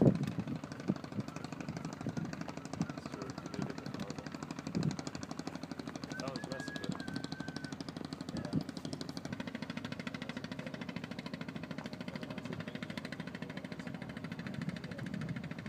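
A boat's diesel engine running steadily, with a fast, even pulse.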